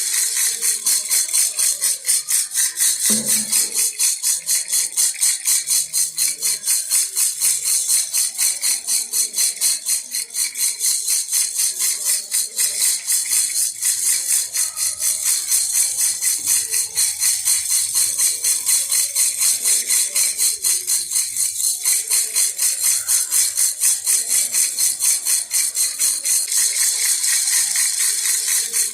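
Baby rattle (jhunjhuna) shaken steadily in an even rhythm, about three jingling shakes a second.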